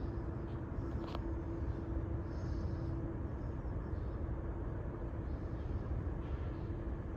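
Steady low rumble of vehicles, with a faint steady hum running through it.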